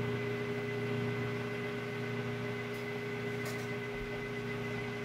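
Lathe motor running at a steady speed with a constant hum, while sandpaper rubs against the spinning cue ferrule and tip, adding a light hiss.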